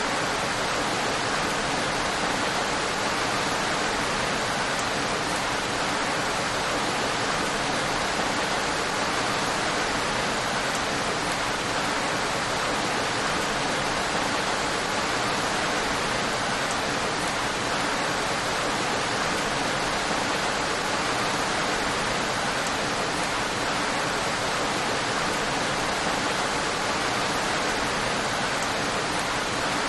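Steady, even rain noise, a constant hiss with no distinct drops, thunder or changes.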